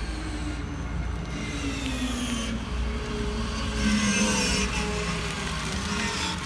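A 100% electric ATM yard tractor driving about, its electric drive giving a whine of several tones that slide slowly up and down in pitch over a steady low rumble.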